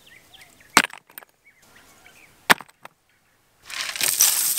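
Two sharp knocks, then a shovelful of one-inch gravel poured into a dug hole, a loud rattling hiss of stones that starts near the end.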